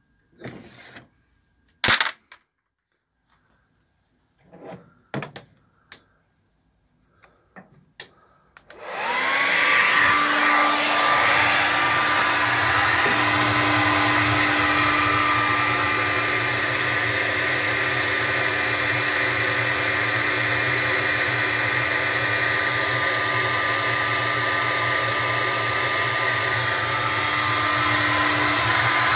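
A few knocks and clicks, then about nine seconds in a hand-held hair dryer switches on, its motor spinning up to a steady pitch, and runs steadily, blowing warm air into the drum of a cold condenser tumble dryer.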